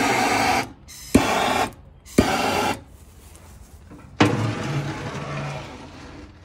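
Handheld Bernzomatic gas torch fired in three short bursts, each a click and then a hiss of burning gas, lighting fire-starter cubes. About four seconds in, a steel ash pan scrapes as it slides into the smoker's firebox, the noise fading over a couple of seconds.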